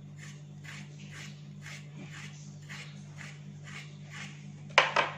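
Large kitchen knife scraping the thin outer skin off a zucchini, short strokes about twice a second over a steady low hum. A sharp knock comes near the end.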